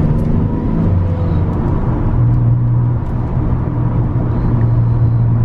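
Toyota Tacoma X-Runner's 4.0 L V6 heard from inside the cab with the windows up, driving in second gear on the stock exhaust: a steady low engine drone, the note rising a little about two seconds in. The stock exhaust itself is barely audible.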